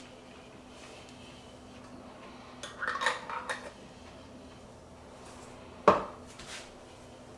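Metal lid put back on a glass pickle jar and twisted on, a short cluster of clicks and scrapes, then the jar set down on a wooden countertop with one sharp knock, the loudest sound, about six seconds in.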